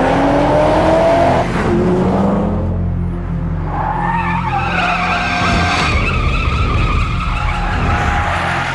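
BMW coupe drifting. The engine revs with rising pitch for the first second and a half, then from about four seconds in the tyres squeal steadily as the car slides sideways.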